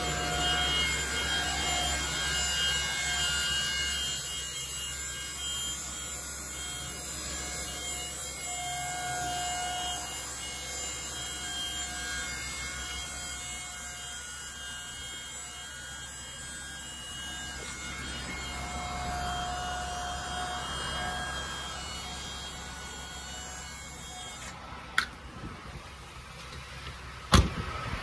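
Ford 6.8-litre V10 gas engine idling with a steady low hum, with a faint whining tone that comes and goes. A click comes near the end, then a sharp knock.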